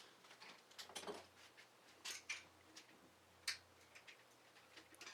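Faint, scattered metallic clicks and clinks, about five in all, of a wrench working on a bicycle's stamped steel caliper brake.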